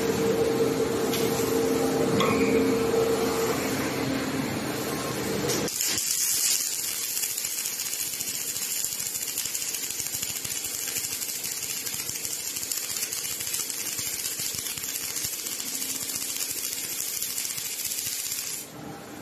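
Robot-held MIG (gas-shielded wire-feed) welding arc: a steady crackling hiss that starts suddenly about six seconds in and cuts off just before the end. Before the arc strikes, a steady machine hum with a held tone.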